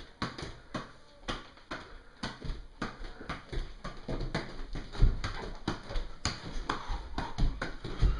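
Soccer ball being juggled and kicked on a hardwood floor: a quick run of thuds, about three a second, from foot touches and the ball bouncing. A heavier thump comes about five seconds in and again near the end.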